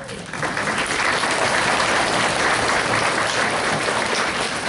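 Audience applauding, the clapping swelling up within the first half second and then holding steady.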